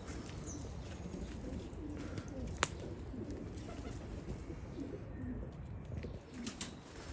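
Syrian domestic pigeons cooing softly around the flock, with a single sharp click about two and a half seconds in.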